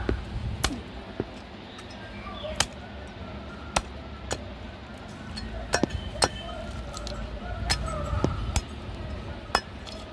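Large steel cleaver chopping goat head meat and bone on a wooden chopping block: sharp, irregular strikes, about ten in all, each with a short clinking ring.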